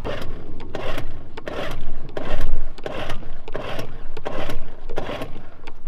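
Small outboard motor being cranked and not yet catching, sputtering in a string of uneven chugs about two a second.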